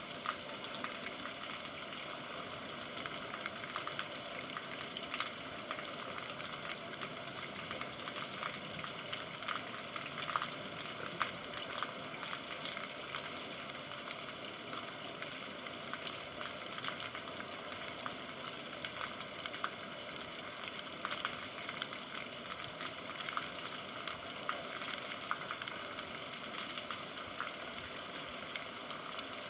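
Steady rain falling, an even hiss scattered with many small sharp drop ticks.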